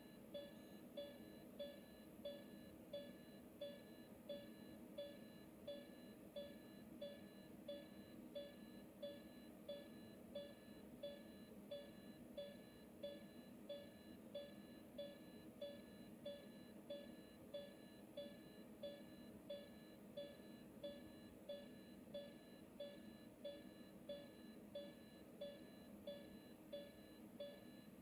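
Heart monitor (ECG) beeping in a steady heartbeat rhythm, about three short beeps every two seconds, faint over a low background hum.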